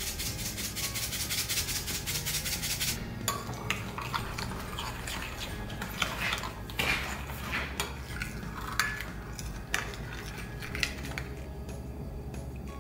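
Salt pattering from a plastic shaker into a ceramic bowl for about three seconds. Then a metal spoon stirs a thick dressing, clinking and scraping against the bowl. Light background music plays underneath.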